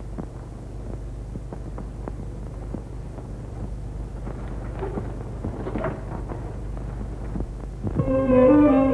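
Old film soundtrack noise: a steady low hum with scattered faint crackles. Background music with a string melody comes in near the end.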